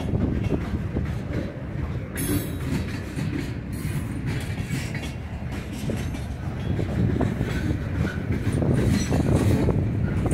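Freight train cars rolling past, a steady rumble with the wheels clicking over rail joints.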